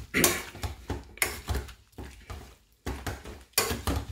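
Metal pav-bhaji masher pushed down again and again into soft boiled bottle gourd in a steel pressure-cooker pot, making a run of uneven knocks and clinks against the pan.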